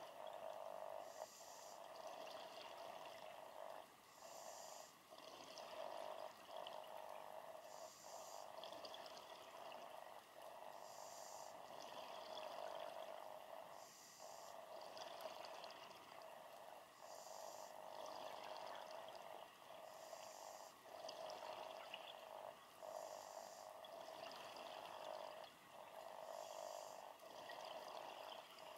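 Faint underwater sound of a scuba diver's regulator breathing: a hiss of inhaled air and a bubbling exhale, about one breath every three seconds.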